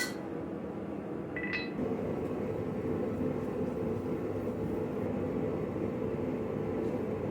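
Two short ringing metal clinks, one right at the start and one about one and a half seconds in, then a steady machine hum that sets in about two seconds in.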